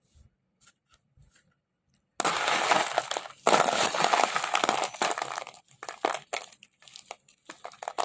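Naphthalene mothball chunks being crushed and handled: a few faint clicks, then about two seconds in a dense run of crunching and crackling lasting some three seconds, breaking up into separate crunches and clinks toward the end.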